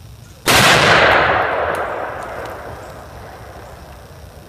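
A single rifle shot from a Winchester Model 71 lever action chambered in .348 Ackley Improved, about half a second in, with the clang of the bullet striking a 5/8-inch steel plate, the sound dying away over about two seconds.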